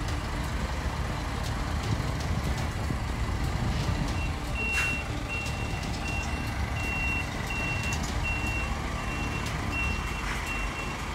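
Semi truck's reversing alarm beeping at about two beeps a second, starting about four seconds in, over the low steady running of the truck's engine as it backs up to manoeuvre through a tight gap.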